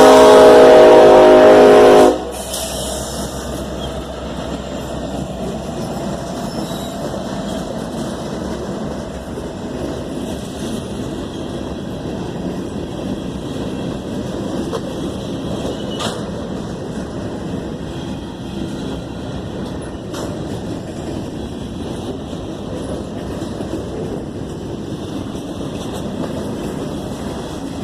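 Union Pacific SD70ACE locomotive horn sounding a loud chord that cuts off suddenly about two seconds in, followed by the steady rumble of the freight train rolling past.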